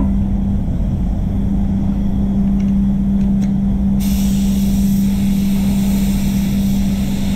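Spray booth running with a steady low hum. About four seconds in, the hiss of a gravity-feed spray gun starts as clear coat is sprayed onto a car bumper.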